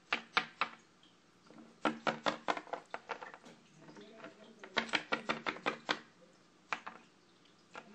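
Plastic Littlest Pet Shop figurine tapped along a hard surface to make it walk, giving quick runs of light clicking taps: a few at the start, two longer runs in the middle and a single tap near the end.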